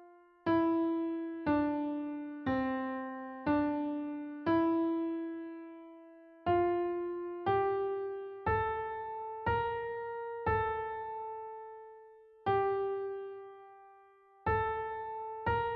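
A single-line melody played on piano, one note at a time, mostly about one note a second with a few notes held twice as long, each note struck and dying away. It is a melodic dictation played through complete, the line dipping, then climbing to its highest notes before falling and rising again.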